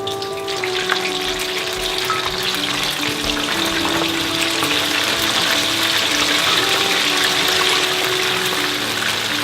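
Food frying in hot oil, a steady crackling sizzle that grows louder about half a second in, with background music underneath.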